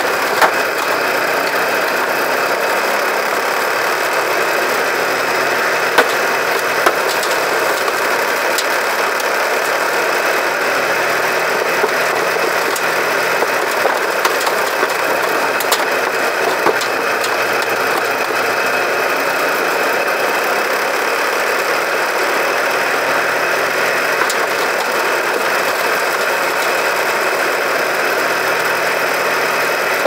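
Homemade sugarcane shredder built from a washing machine, running steadily and shredding cane, a constant mechanical noise with scattered sharp ticks.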